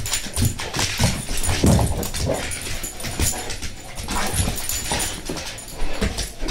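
A dog playing rough: paws thumping and scrabbling on a hardwood floor as it leaps at a woven basket, with short excited dog noises.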